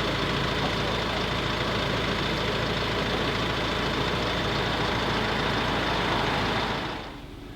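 Steady mechanical running noise, like an engine idling, with a constant low hum. It drops to a quieter hum about seven seconds in.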